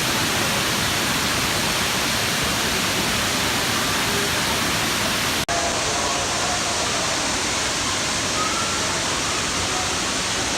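A large waterfall pouring: a steady, loud rush of falling water, with a momentary dropout about halfway through.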